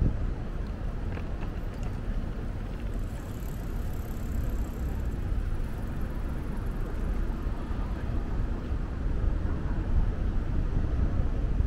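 Steady rumble of city street traffic passing by.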